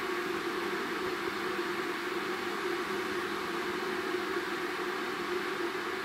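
Philips 1.7-litre stainless-steel electric kettle heating water, giving a steady rushing hiss that does not change.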